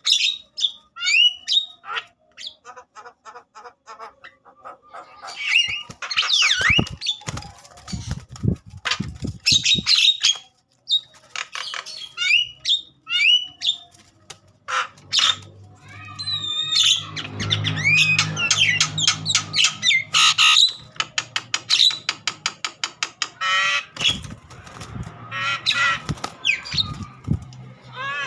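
Agitated Javan myna calling hard and fast: a jumble of harsh squawks, rapid clicking rattles and short rising whistled notes, with bursts of wing flapping.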